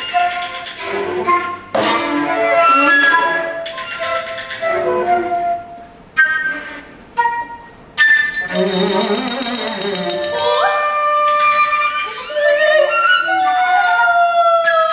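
Concert flute playing a melodic solo over a small chamber ensemble with violin and cello, its line sliding between notes in the last few seconds. About eight seconds in, a shaken frame drum's jingles rattle for a couple of seconds.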